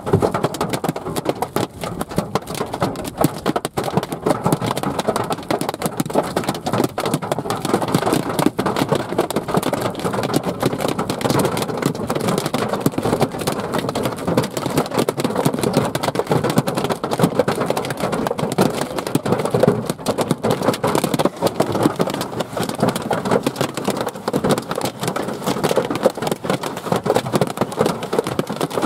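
Hailstones hitting a vehicle's roof and windshield, heard from inside the cab as a dense, unbroken clatter of impacts.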